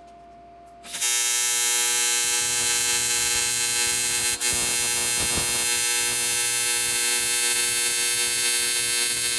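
AC TIG welding arc on aluminium with 4043 filler, struck about a second in, then a loud, steady buzz at the machine's 120 Hz AC frequency, with one brief dip about four seconds in.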